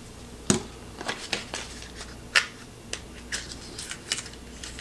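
Scattered light clicks and taps of small screwdriver bits and their plastic packaging being handled. The sharpest click comes about half a second in and another near the middle.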